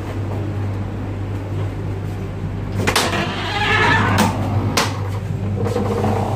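Steady low hum of a train carriage. About three seconds in, a carriage door's latch clicks, the door squeaks briefly, and two sharp knocks follow as it opens and shuts.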